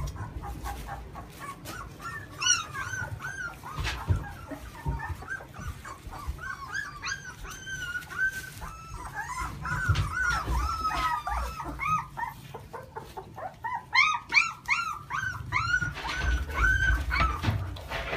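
Young Australian shepherd puppies squeaking and whimpering in many short, high-pitched cries, coming thickest around the middle and again near the end.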